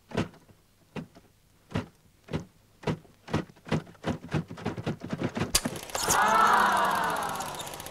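Opening-title sound effects: a run of sharp knocks that come faster and faster, then a sudden hit about five and a half seconds in, followed by a loud, wavering, many-toned swell that fades away.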